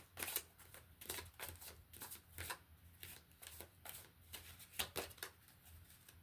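A deck of oracle cards being shuffled by hand: a run of irregular short flicks and slaps, a few a second.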